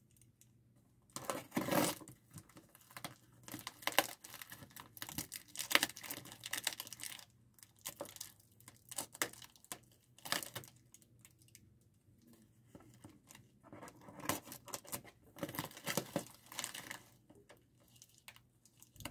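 A shipping package being slit open with a box cutter, with the packaging tearing and crinkling in irregular bursts and short pauses between them.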